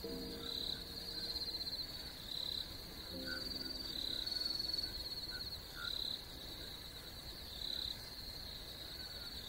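Night insects trilling: high-pitched pulsed chirp trains that repeat every second or so. A few low held tones sound briefly at the start and again about three seconds in.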